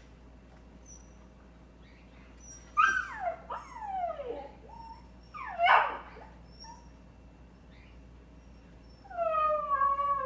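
A dog making odd whining cries that fall in pitch: a few about three seconds in, a louder short one near six seconds, and a long, drawn-out falling cry near the end.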